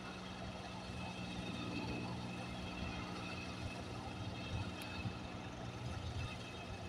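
An engine running steadily at an even speed, a low hum without changes.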